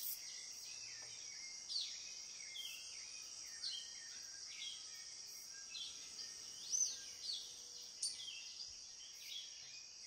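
Faint rainforest ambience: a steady, high-pitched insect hiss under a string of short, sharp chirping calls from red-capped manakins at their display lek. A single sharp snap comes about eight seconds in.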